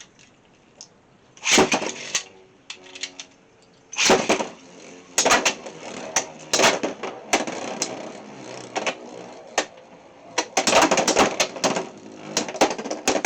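Two Beyblade X spinning tops whirring and clashing in a stadium: a burst of clatter about one and a half seconds in, then from about four seconds on, repeated sharp hits and rattling as they collide.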